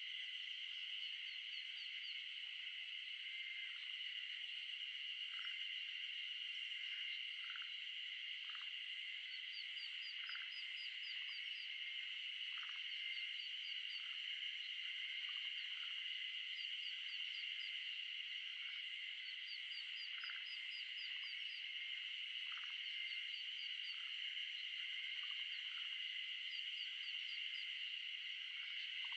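Wetland ambience: a steady, dense chorus of high calling animals, with short runs of quick high peeps repeated every few seconds and scattered brief lower calls.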